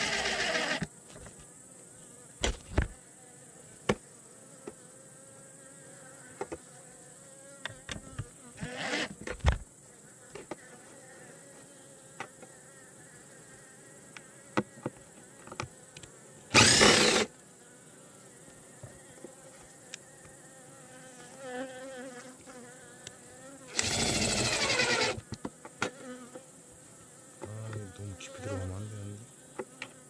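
Honeybees buzzing around the hive, with three short whirring bursts from a cordless screwdriver driving screws into the hive's wooden front: near the start, past the middle, and a longer one later. A few sharp knocks from handling the wood.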